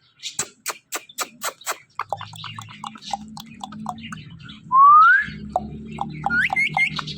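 Ringneck parrot clicking quickly, about four clicks a second, then giving short chirps and one loud rising whistle. A few short upward whistles follow near the end, over a steady low hum.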